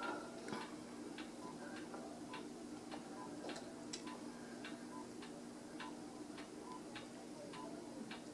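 Bedside patient monitor beeping in time with the heartbeat, short regular beeps a little under two a second, over a steady low hum.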